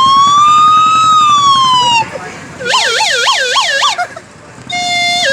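Toy pungi blown to imitate an emergency-vehicle siren: one long wail that rises and falls, then a fast warble of about four ups and downs, then near the end a two-tone note alternating high and low.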